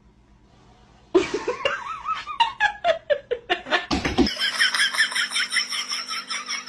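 A person laughing: a run of short 'ha' pulses falling in pitch, starting about a second in and stopping abruptly about four seconds in. After that comes a quicker, higher run of pulses over a steady hum.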